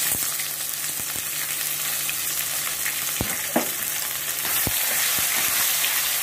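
Sliced onions sizzling in hot mustard oil in a wok, starting suddenly the moment they are dropped in and frying steadily. A few sharp knocks of the spatula on the pan as they are stirred.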